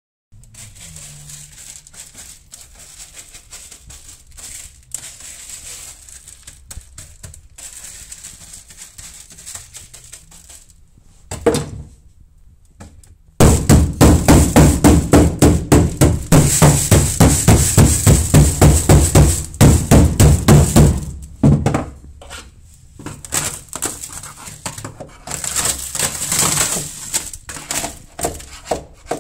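Rubber mallet pounding dry-ice-frozen sound-deadening mat on a Nissan S13's steel floor pan in a long, loud run of about three blows a second. The blows crack the brittle, frozen mat. Before that come quiet scraping of a brush over dry ice pellets and a single knock, and after it scattered cracks and knocks as the shattered pieces break loose.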